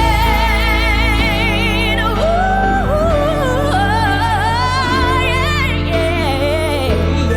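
Female pop-gospel vocal with keyboard accompaniment: a held note with wide vibrato gives way to fast melismatic runs, over sustained keyboard chords and bass.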